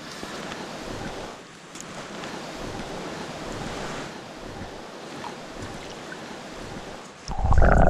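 Shallow stream water rushing steadily over rocks. Near the end a sudden, much louder low rumble takes over.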